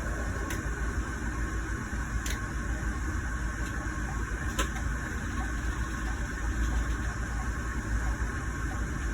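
Steady diesel engine and road rumble heard from inside a Scania Irizar i6 coach, with three sharp clicks in the first half.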